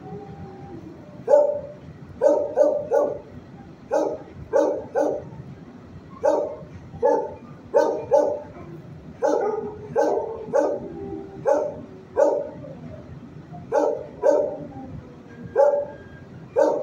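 Dogs barking in shelter kennels: short, sharp barks in irregular singles and quick pairs, about one and a half a second, from other kenneled dogs rather than the quiet dog lying in front of the camera.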